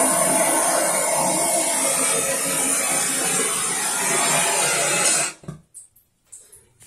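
Handheld gas soldering torch burning with a steady rush of flame noise while heating a copper pipe joint. It is shut off a little over five seconds in, the noise cutting out suddenly, followed by a few faint clicks.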